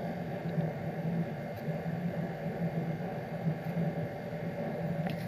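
Steady low hum with a faint even hiss of background noise, with no keystrokes.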